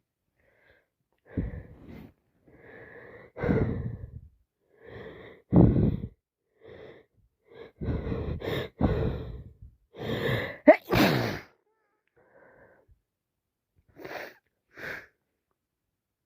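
A woman sneezing again and again, with wheezy, gasping breaths between the sneezes, congested from a cold that has turned into sinusitis. The sneezes come in a run through the first two thirds, the loudest in the middle and toward the end of the run, followed by two short, quieter breaths.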